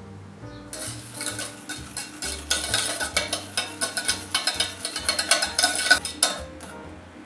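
Wire whisk beating chocolate peanut butter frosting in a stainless steel saucepan: rapid clicking and scraping of the wires against the pan. It starts about a second in, is loudest in the middle and stops just before the end.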